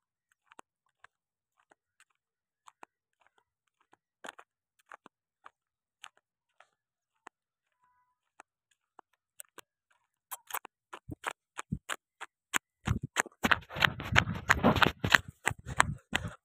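Irregular crisp ticks and scuffs of footsteps on a dirt road. Near the end they thicken into a loud spell of close rustling and knocking.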